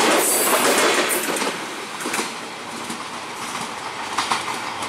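Passenger train coaches rolling past close by, their wheels clattering over the rails. About a second and a half in the sound drops to a quieter, more distant rumble with a few sharp clacks.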